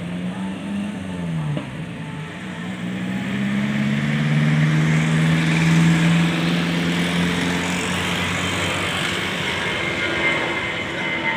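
Engine running with a low steady hum and a rushing noise that swells a few seconds in, then holds.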